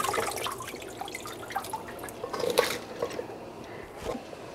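Water splashing and dripping in a stainless steel kitchen sink as hands move cardoon stalks about in it, with scattered small clicks and one sharper knock about two and a half seconds in.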